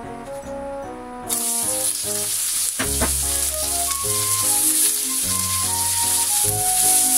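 Carrot and green pepper strips sizzling as they go into hot oil in a frying pan. The sizzle starts suddenly about a second in and carries on as they are stir-fried with chopsticks, with a single knock a little before three seconds.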